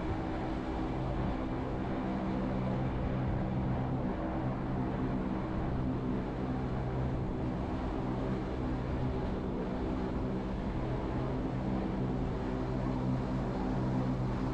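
Electric rack-railway train of the Wengernalp line running uphill, heard from on board: a steady hum from its traction motors and gearing over rolling noise, with low tones that fade in and out.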